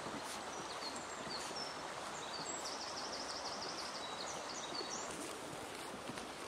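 Small birds singing in a spring forest: scattered short, high chirps and one quick trill about two and a half seconds in, over a steady outdoor background hiss.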